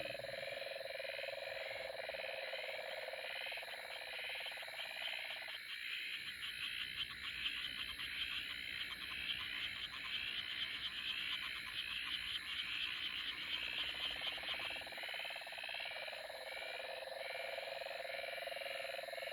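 A chorus of frogs calling at night, many quick repeated chirping calls overlapping, with a steady lower trill that drops out about six seconds in and comes back near fourteen seconds.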